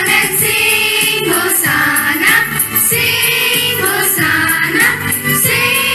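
A small group of school children singing a prayer song together in unison.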